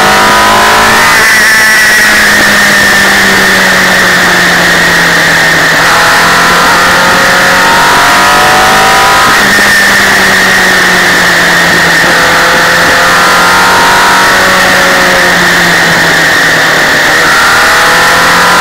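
Motorcycle sidecar rig's engine under way, its note climbing as it accelerates and dropping back at each gear change several times, over steady wind and road noise.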